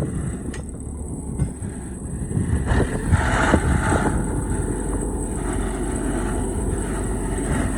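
Heavy diesel truck engine running steadily, with a few short knocks over it and a brief rise about three seconds in.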